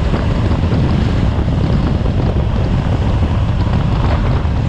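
Steady heavy wind buffeting the microphone of a Honda CB500X motorcycle under way on a road, a dense rumble strongest in the low end.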